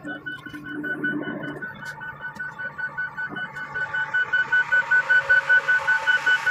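Rapid electronic warning beeps from heavy machinery, about four or five a second, growing louder in the second half, over a steady low engine hum.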